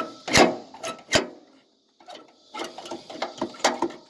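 Sharp mechanical clicks and knocks, two strong ones in the first second and a run of smaller clicks in the second half, from hands working a garden tractor that will not crank.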